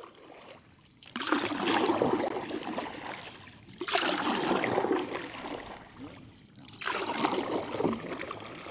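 Canoe paddle strokes in water, each a splash trailing off into dripping, about every three seconds.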